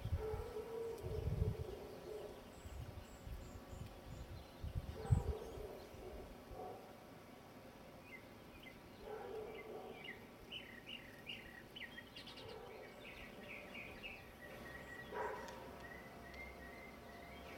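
Small birds chirping outdoors: quick runs of short, high chirps, busiest in the second half, with a few lower calls between them. Low thumps sound in the first few seconds, the loudest about five seconds in.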